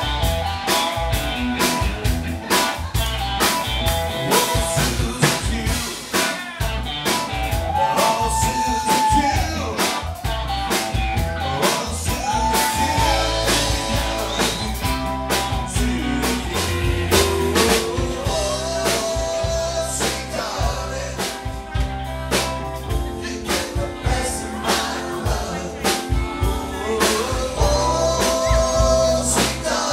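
Live rock band of electric guitar, keyboards and drum kit playing a blues-rock song, with a steady drum beat under a lead line of bending, sliding notes.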